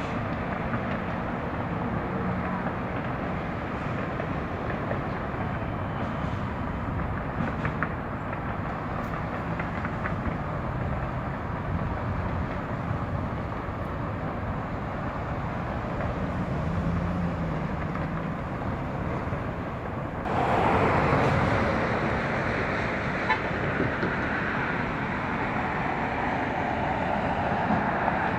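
Steady outdoor traffic noise with a low engine hum. About two-thirds of the way through it steps up to a louder rushing hiss.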